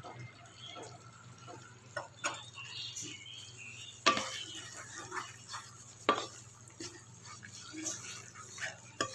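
Wooden spatula stirring and scraping a thick paste around a non-stick wok, with a few sharp knocks against the pan, the loudest about four seconds in.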